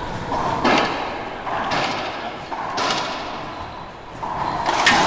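Racquetball rally: the ball cracks off racquets and the court walls in four sharp hits, about one a second with a gap near the end, each echoing in the enclosed court.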